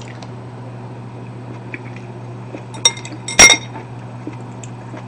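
Chopsticks clinking on a ceramic bowl: a light tap about three seconds in, then a louder ringing clink as they are set down across the bowl, over a steady low hum.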